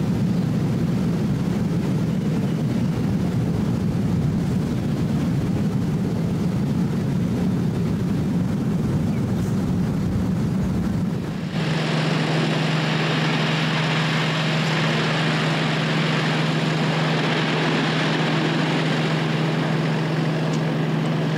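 A loud, steady low rumble of wildfire field audio. About halfway through it switches abruptly to a steady engine-like hum with hiss above it.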